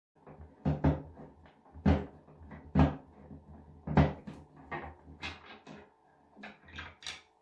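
Screwdriver working the side screws of a round ceiling light cover: a run of sharp clicks and knocks. The loudest come roughly once a second, with lighter ticks between and a quick cluster near the end.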